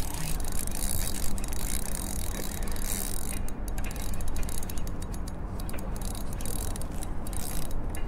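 Spinning reel being cranked against a hooked fish, its gears giving a dense run of mechanical ticking and clicking.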